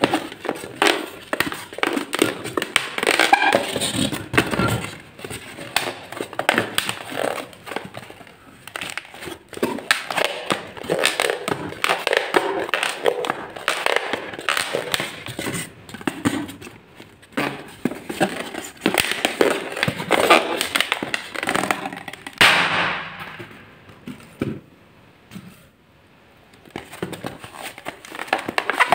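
Inflated latex twisting balloons squeezed and rubbed by hand, giving irregular rubbery squeaks, creaks and crackles.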